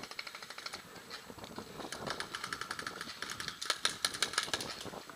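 Paintball markers firing, a rapid popping of shots, with a fast string of about eight or nine shots a second near the end.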